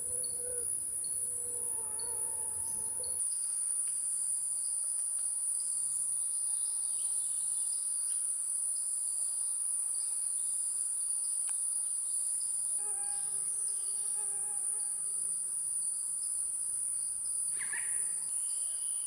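Steady, high-pitched drone of a tropical insect chorus in forest. Occasional bird calls sound over it, including a low repeated call about two-thirds of the way through and a short high chirp near the end.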